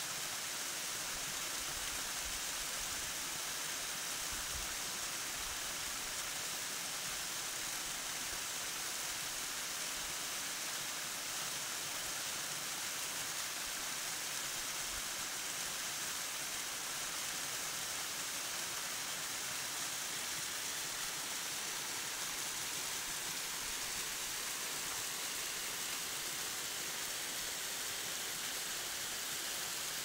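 Small waterfall pouring down a rock face and splashing into a shallow pool: a steady, even rush of falling water.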